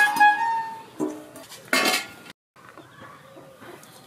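Stainless steel plates and bowls handled on a concrete floor. A ringing metal clang at the start fades over about a second, followed by a light knock about a second in and a short scrape a little later.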